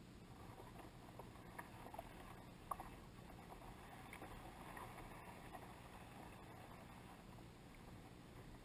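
Faint water lapping against a kayak's hull, with a few small ticks of splashing about two to three seconds in.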